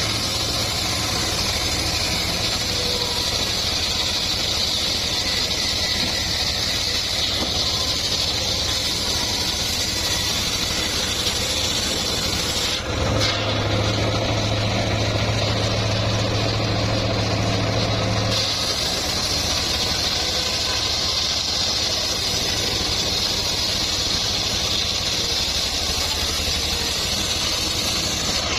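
Home-built circular sawmill running with a steady engine drone and a high hiss. The tone changes abruptly about 13 seconds in and again about 18 seconds in.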